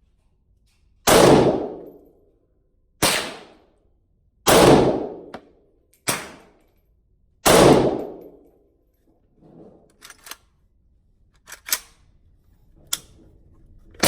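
Five rifle shots from a Palmetto State Armory GF3 AK47 firing Wolf 7.62x39 steel-cased ammunition, fired one at a time about a second and a half apart, each a sharp crack with a short ringing tail. Lighter clicks and knocks follow in the last few seconds.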